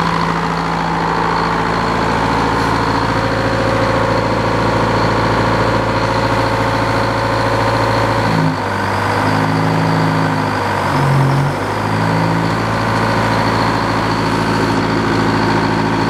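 The sawmill's power-unit engine idling steadily. A little past the middle its tone changes for a few seconds, then settles back to the same steady idle.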